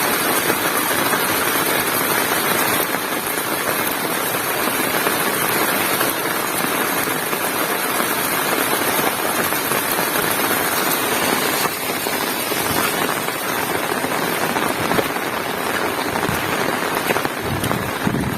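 Heavy rain falling steadily, pattering densely on surfaces.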